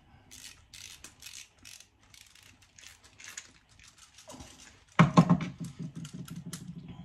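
Small screwdriver turning and tightening the terminal screws on a plastic thermostat wiring backplate: a run of light, irregular clicks and scrapes. About five seconds in comes a louder knock, then a low, fast rattle as the wired plate is handled.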